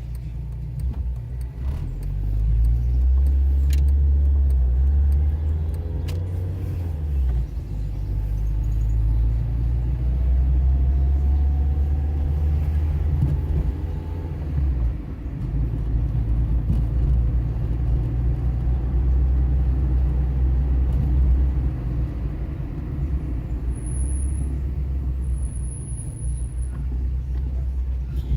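Car driving along a town street: a steady low engine and road rumble that swells and eases with speed, with an engine note rising briefly partway through.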